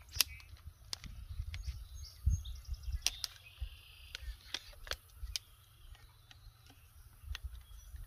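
Sharp clicks and light knocks of the folding camping table's poles being snapped into the ball-end hub of the frame, irregular and about ten in all, with low bumps of handling. Birds chirp faintly in the background.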